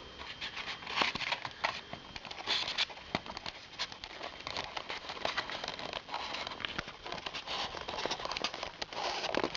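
Hands working on a foam RC model plane: crinkling, rustling and many light clicks as wiring and parts are pushed and pulled into place.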